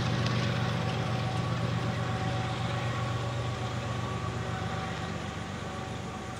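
Diesel engine of Norfolk Southern 8099, a GE ES44AC locomotive working as a rear distributed-power unit, running steadily and fading slowly as the train moves away.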